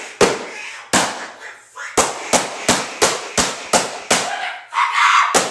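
A rapid series of about ten sharp bangs, each with a short echoing tail, coming about three a second through the middle, with a last bang near the end.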